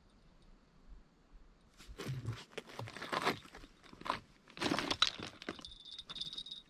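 Footsteps crunching over loose shoreline rocks, an irregular run of steps starting about two seconds in. A steady high-pitched tone comes in near the end.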